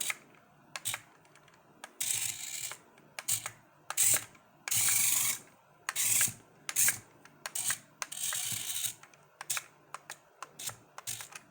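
The tiny electric gear motors of a 1:64 scale mini RC excavator whirring in short, high-pitched spurts, each a fraction of a second to about a second long, as the tracks and arm are driven by the remote's buttons. Sharp clicks fall between the spurts.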